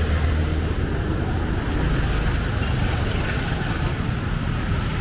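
Steady street traffic noise from passing motor vehicles, with a low rumble of wind on the microphone.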